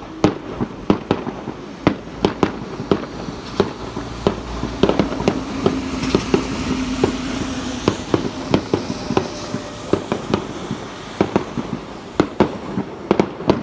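Fireworks going off: a fast, irregular string of sharp bangs and pops, several a second, with a low steady hum under them through the middle stretch.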